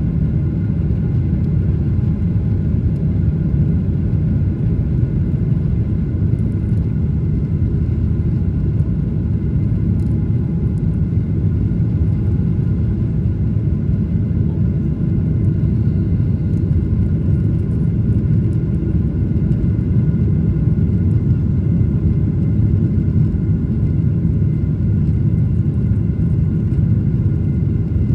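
Airliner jet engines at takeoff power, heard inside the cabin by the wing: a steady low roar with faint steady whining tones above it, unbroken through lift-off and the initial climb.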